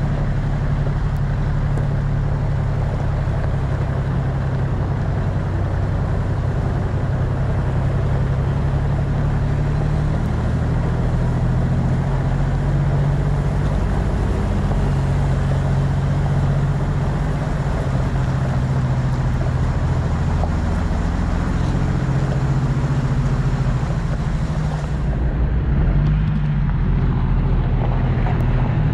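A four-wheel-drive vehicle's engine running steadily while driving, its note rising and falling a little with the throttle, under continuous road and tyre noise.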